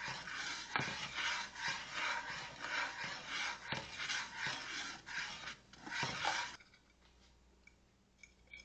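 Metal spatula scraping and stirring thick ground-beef milk gravy in a stainless steel skillet, in rhythmic strokes about two a second. It stops about six and a half seconds in.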